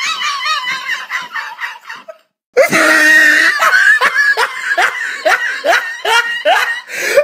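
Loud, high-pitched laughter breaking out after a roast joke. It cuts out for a moment about two seconds in, then goes on in a run of short, rising bursts, about three a second.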